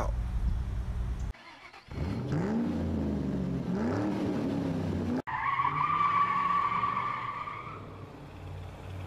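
Car engine revving twice, its pitch rising and falling each time, then a sharp click and a tire squeal held for about two and a half seconds before fading.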